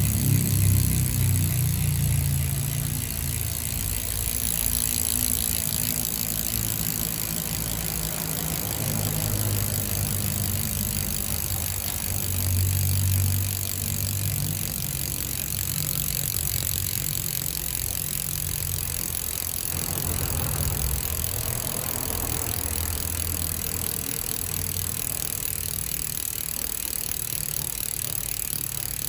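Odessy 'jangkrik' freehub on a road bike wheel buzzing with a fast, continuous ratchet clicking as the wheel freewheels, with a low rumble underneath at times.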